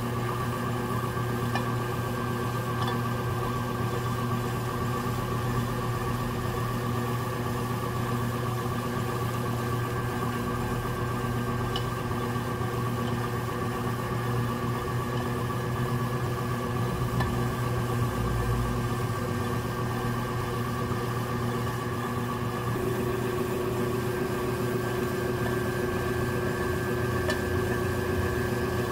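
Electric potter's wheel motor humming steadily as the wheel turns, with the scraping of a metal trimming tool shaving leather-hard porcelain clay from the spinning pot. The hum's tone shifts slightly about two-thirds of the way in.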